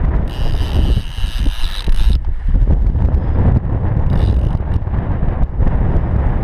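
Heavy wind buffeting the microphone, a steady low rumble. About half a second in, a high hiss with a faint whining tone comes in over it for nearly two seconds, and a shorter one follows about four seconds in.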